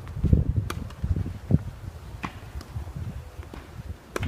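Strong wind buffeting the microphone with an uneven low rumble, and three sharp tennis-ball hits off racket strings about a second and a half to two seconds apart, as in a rally.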